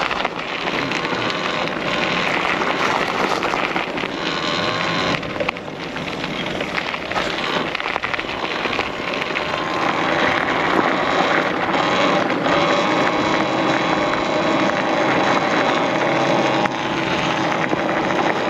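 Wind rushing over the microphone with tyre and road noise while riding a Talaria Sting R MX4 electric dirt bike; a faint steady hum joins about halfway through.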